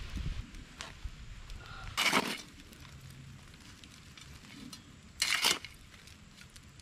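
A small metal shovel scraping into a campfire's hot coals and ash twice, about three seconds apart, each a short gritty crunch, with the fire crackling faintly in between.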